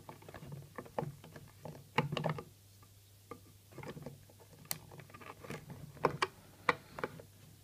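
Hard plastic toy parts clicking and tapping together, irregular sharp clicks, as a translucent plastic axe is worked into the peg slots of a clear plastic trailer from a Transformers Masterpiece Optimus Prime toy.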